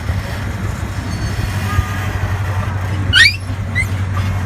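Small park train running with a steady low hum, and a little after three seconds in a brief, loud, rising high squeal, followed by two fainter short squeaks.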